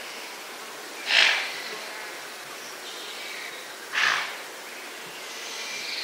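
Waterbuck giving two sharp alarm snorts, about three seconds apart, the warning call of a herd that has sensed danger. Birds and insects sound faintly behind.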